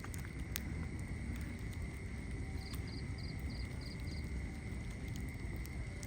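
Wood fire burning in a fireplace: a steady low rush of flames with occasional sharp crackles and pops.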